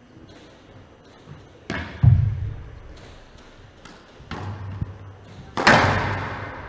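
Several hard thuds of a squash ball on the court, the loudest about two seconds in and another near the end, each ringing in the large hall, with a few lighter knocks between them.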